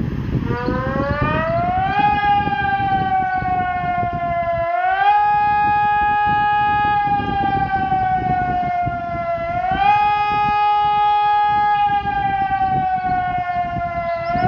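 SES 600 civil defense siren starting up and wailing. Its pitch climbs for about two seconds, then slides slowly down and jumps back up roughly every five seconds. A low rumbling noise runs underneath.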